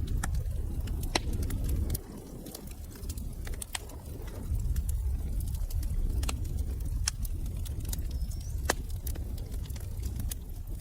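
Wood fire burning in a fireplace: sharp, irregular crackles and pops, a few standing out, over a low steady rumble of flames, with a faint short whistle about eight seconds in.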